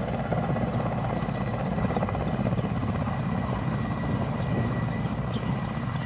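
Mi-8 twin-turbine helicopter hovering low, its main rotor chopping fast over a steady high turbine whine.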